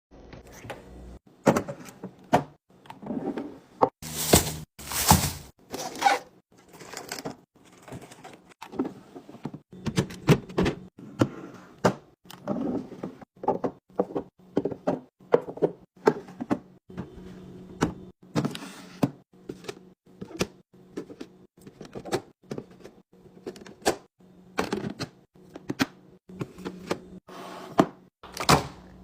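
Restocking a refrigerator: plastic containers, bottles and packages are set down and moved about, giving a string of irregular clacks and knocks, with a few short bursts of rustling or sliding.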